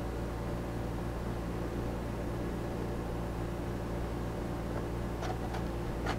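A steady low machine hum with hiss, at an even level, with a few short light clicks near the end.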